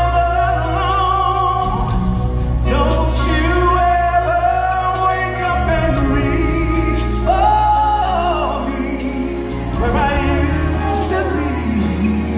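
Live band playing an R&B ballad, keyboards and a steady low bass under a singer who holds long, wavering notes and slides between pitches.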